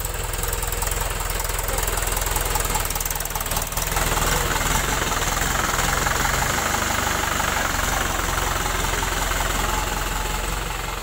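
Mahindra 575 DI tractor's four-cylinder diesel engine running steadily, getting a little louder about four seconds in.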